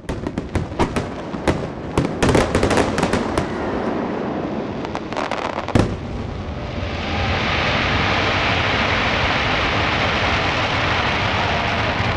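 Aerial fireworks shells bursting in a rapid string of sharp bangs and pops, the loudest about six seconds in. After about seven seconds the bangs give way to a steady rushing noise.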